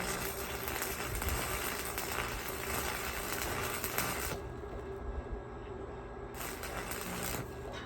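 Electric arc welding crackling steadily for about four seconds, stopping, then a second short weld of about a second near the end, over a steady hum.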